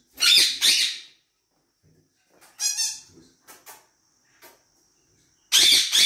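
Pet parrots calling: two loud, shrill calls at the start, a shorter, more tuneful call about two and a half seconds in followed by a few faint clicks, and another loud, shrill call near the end.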